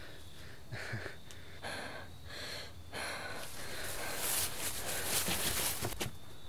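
A person breathing hard, breaths coming roughly a second apart at first and then merging into a steadier rush of breath in the second half.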